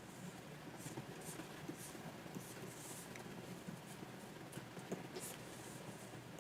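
Stylus nib on a Wacom 24 Pro pen display: a string of short, faint scratchy strokes across the screen, with a light tap about five seconds in.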